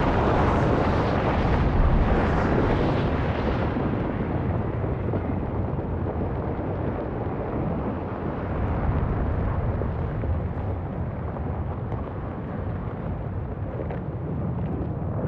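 Underwater volcanic eruption rumbling, a dense, loud roar with a hissing edge for the first few seconds that then settles into a steadier low rumble.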